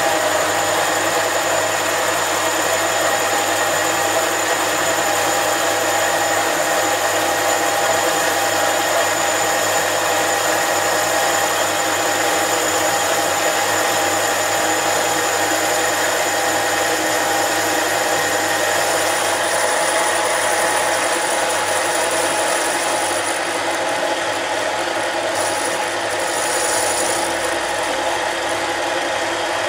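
Mini lathe running, its motor and gearing giving a steady whine while a tool turns the outside of a cast iron cylinder sleeve. A thin high note joins about two-thirds of the way through.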